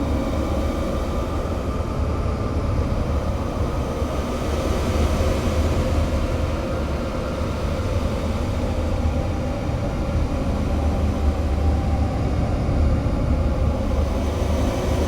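Steady, dense rumbling noise drone from an experimental music track, with a deep low rumble under a hiss-like wash and no beat or melody.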